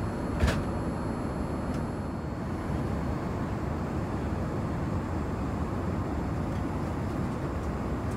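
Steady rumble and rush of airliner cabin noise inside a Boeing 787, with one short click about half a second in.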